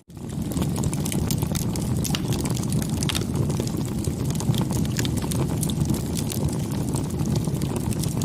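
Wood bonfire burning: a steady low rush of flames with many small sharp crackles and pops scattered throughout. The sound cuts out for a split second right at the start.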